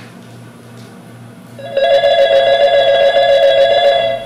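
Telephone ringing with a steady two-tone electronic ring for about two and a half seconds, starting a little under two seconds in: the ring of an incoming call.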